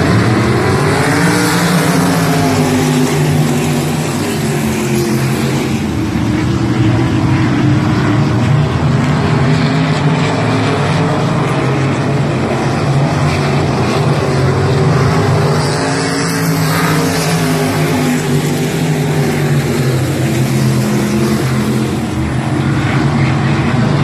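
A field of winged sprint cars racing on a dirt oval, their V8 engines revving together, the pitch rising and falling in slow waves as the pack goes down the straights and through the turns.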